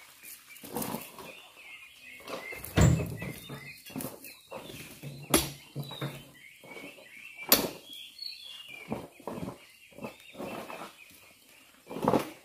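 Oil palm fruit bunches thrown by hand into a steel dump-truck bed, landing with several heavy thuds and bangs a couple of seconds apart. Birds chirp and chickens cluck faintly throughout.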